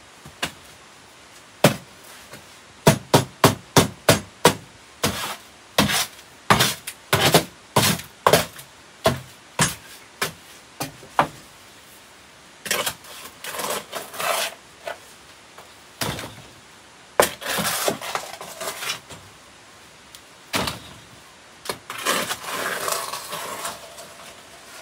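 A hard hand tool knocking sharply, about two knocks a second for the first half, then three longer stretches of scraping.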